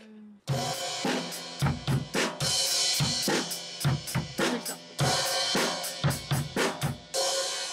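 Acoustic drum kit played in a steady beat, kick and snare hits under a wash of crash and ride cymbals. It starts about half a second in and stops shortly before the end: a practice run through a chorus groove.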